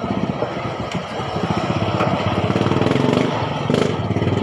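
Small motorcycle engine running steadily, with a rapid low pulsing beat, swelling a little in loudness partway through.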